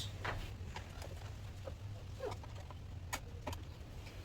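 A few light, scattered clicks and taps from hands checking the air intake hose and its clamps, over a faint steady low hum.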